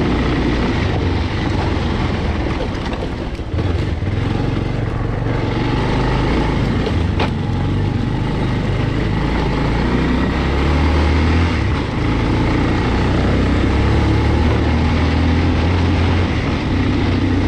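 Single-cylinder motorcycle engine running steadily as the bike rides along, its low note shifting a little in pitch.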